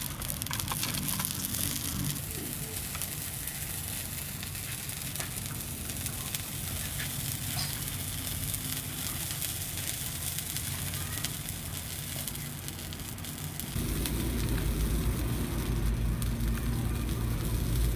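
Steady crackling and hissing of a cooking fire under a pot, with wet sounds of hands working sauce over the snake. About fourteen seconds in, a louder low rumble joins and carries on.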